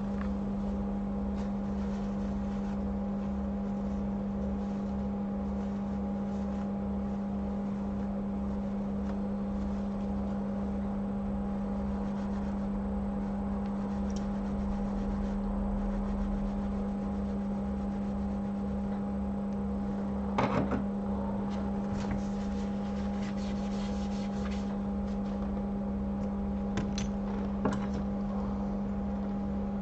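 Steady electric hum of running bench equipment during a solder-paste chip reballing job, with a few small sharp clicks of tools on the bench about two-thirds of the way in and again near the end.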